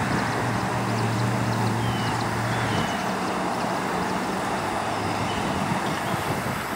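Steady rushing outdoor background noise with a low hum that fades out about three seconds in, and a few faint, short high chirps.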